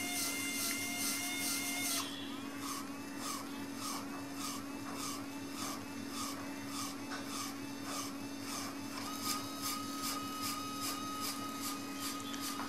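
Student-built Braille embosser's actuators at work embossing the dots of a letter. A steady electric whine cuts off about two seconds in and gives way to regular clicks, about two a second, over a constant low hum. A steady whine returns about nine seconds in.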